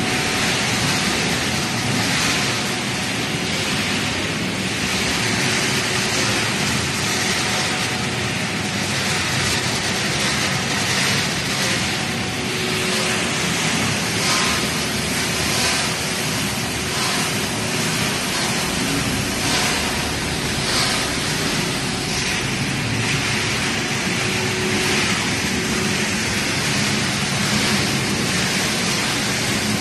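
Dry pet food production line machinery running: a rotating drum and conveyor with their electric motors, making a steady, even machine noise with a faint constant hum.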